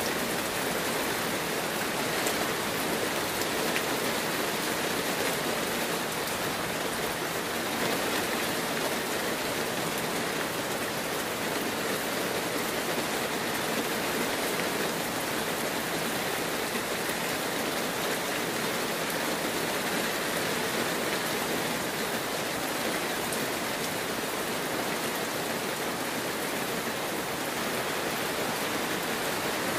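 Heavy rain falling steadily: a dense, even hiss of rain with fine patter of drops, unchanging in loudness.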